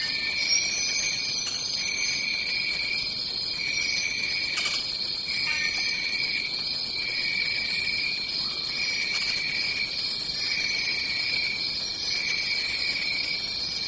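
Tropical rainforest ambience: a dense chorus of insects buzzing steadily on two high pitches, with a few short higher calls over it and a single click about halfway through.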